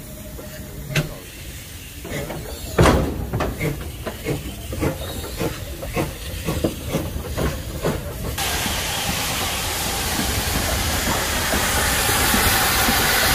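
Steam locomotive working, a run of exhaust chuffs about three a second. About eight seconds in, a loud steady hiss of steam starts suddenly and grows louder.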